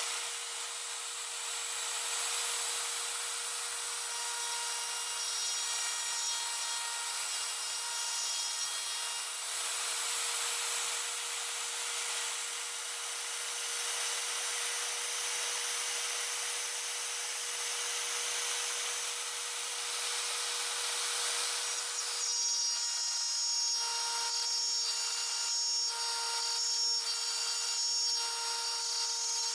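Router spindle motor on a homemade CNC mill running with a steady whine while its bit cuts a groove into plywood. From about twenty-two seconds in the cutting noise turns uneven, pulsing about once a second.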